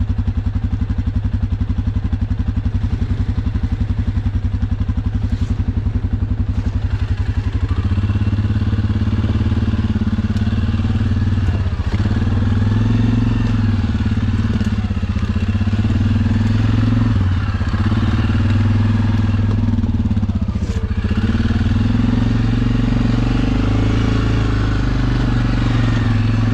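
Single-cylinder ATV engine idling with a steady putter. About eight seconds in it revs up, then runs under load with the pitch rising and falling as the throttle is worked, easing off briefly a few times.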